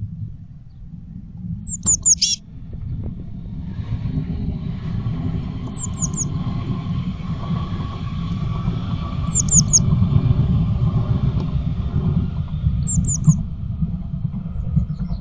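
Blue tits calling: four short groups of three or four quick, high, falling notes spaced a few seconds apart, the first group ending in a brief buzzy trill. Under them runs a steady low rumble in the nest box.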